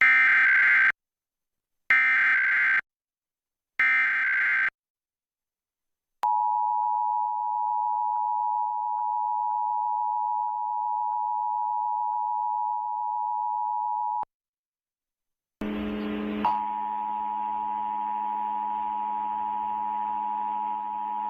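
Emergency Alert System test tones on TV audio: three one-second screeching bursts of SAME header data about two seconds apart, then the eight-second steady two-tone attention signal (853 and 960 Hz). After a short gap a second steady tone with a low buzz starts about sixteen seconds in and holds.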